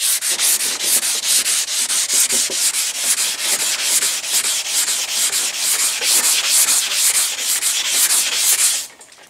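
Hand wet-sanding: a sanding block wrapped in wet 320-grit sandpaper is stroked back and forth over primed fiberglass in quick, even rubs of about four to five a second, stopping just before the end. This is block sanding to take off the guide coat and flatten the primer before base coat.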